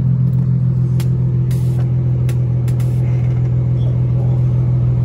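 Car engine idling steadily with a low, even hum, and a few light clicks over it.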